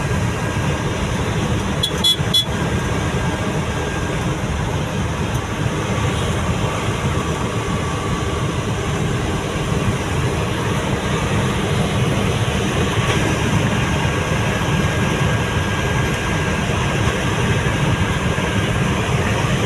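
Inside a pickup's cab at highway speed: a steady drone of engine, tyre and wind noise, strongest in the low end, with a brief clicking rattle about two seconds in.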